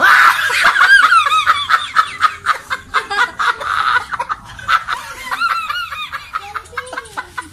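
A man laughing hard: loud, hearty laughter in repeated high-pitched bursts, breaking out suddenly and easing off near the end.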